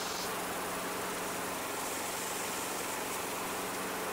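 Briggs & Stratton single-cylinder mower engine running steadily after starting on the first pull of the recoil starter.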